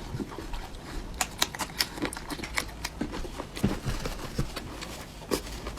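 Close-miked eating sounds: chewing with many irregular sharp clicks and mouth smacks, several a second.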